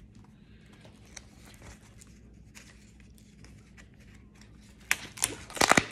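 Large photo prints being handled and shuffled on a table: faint rustling and soft ticks, then a few loud, quick sliding swishes of the sheets about five seconds in and near the end as one print is pulled past another.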